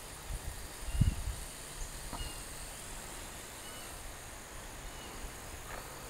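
Wind buffeting the microphone in uneven low gusts, with one louder thump about a second in. Behind it runs a steady faint high hum of insects, with a few short high chirps.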